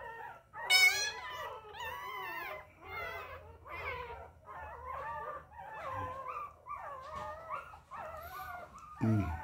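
Two-week-old puppy crying and whining: a quick run of high, wavering cries one after another, with a sharp, loud squeal about a second in.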